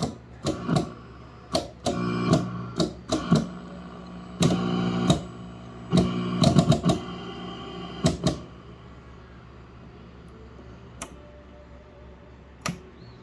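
Sharp clicks and short bursts of buzz from an old tube colour television, over a steady low hum. The clicks and buzz stop about eight seconds in, leaving the hum, with one more click near the end.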